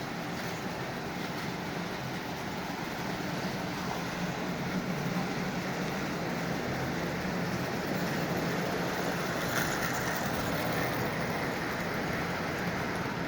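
Lionel 8410 General model locomotive pulling six passenger cars around the track: a steady motor hum with the wheels rumbling on the rails, a little louder about two-thirds of the way through.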